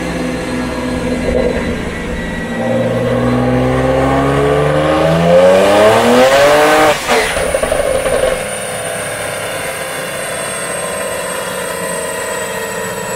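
Tuned BMW N54 twin-turbo straight-six revving under full throttle on a chassis dyno, its pitch climbing steadily for about four seconds to a loud peak. The engine cuts off sharply about seven seconds in, a short rush of noise follows, and then a faint high whine falls slowly as the drivetrain and rollers coast down.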